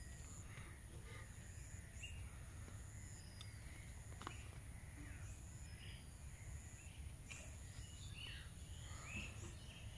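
Quiet rural ambience: scattered short bird chirps over a faint steady high insect drone and a low rumble, with a few light clicks.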